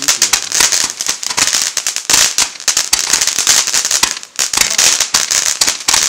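Fireworks going off: dense, rapid firecracker bangs and crackles running together with a hiss, easing briefly about four seconds in.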